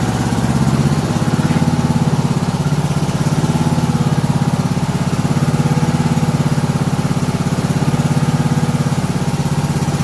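Toro LX420 riding lawn tractor's engine running steadily with an even pulse, a little louder from about a second in.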